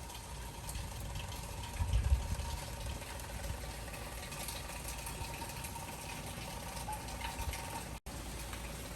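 Steady hurricane rain and wind, with a gust buffeting the microphone about two seconds in.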